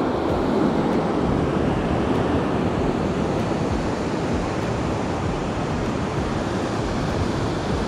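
Ocean surf breaking and washing up a sandy beach: a steady, even rush of waves, with wind buffeting the microphone.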